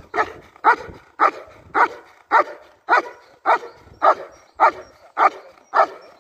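German Shepherd barking in a steady, even rhythm, about two sharp barks a second, each as strong as the last. This is the sustained barking at the helper in IGP protection work.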